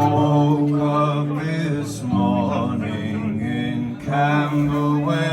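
Live music: a man singing sustained phrases over acoustic guitar.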